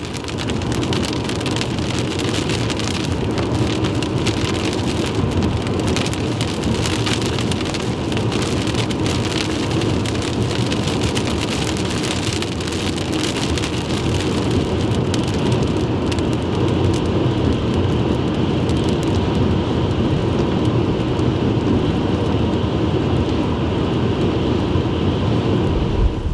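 Heavy rain and wind from a severe thunderstorm beating on a vehicle: a steady, dense patter of drops over a windy rush. The drop hits thin out a little past the middle.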